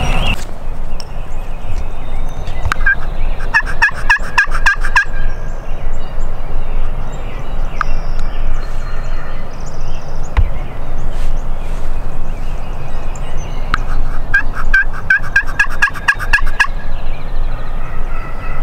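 A wild turkey tom gobbling twice, each gobble a quick run of about ten notes lasting about a second and a half: once about three and a half seconds in, and again about fourteen and a half seconds in.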